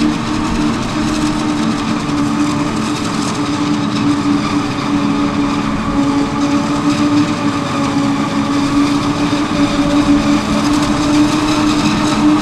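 Claas Jaguar forage harvester running under load as it chops standing maize, a steady mechanical drone with two steady low tones, mixed with the John Deere tractor driving alongside with the silage trailer.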